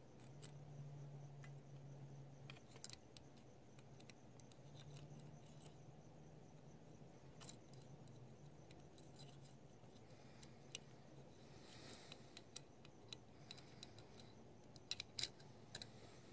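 Near silence with faint, scattered clicks and ticks, more of them over the second half. These are the small metal parts of an Edelbrock 1406 carburetor (metering rod, spring and cap) being fitted into the carburetor by hand. A faint steady low hum lies under the first part.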